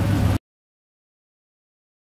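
Dead digital silence. A steady low hum with a hiss stops abruptly less than half a second in, as the sound track cuts out.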